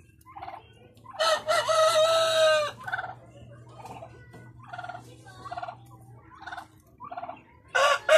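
An Australorp rooster crows, one long held call about a second in, and starts another crow near the end. Between the crows come short clucking calls, roughly one a second.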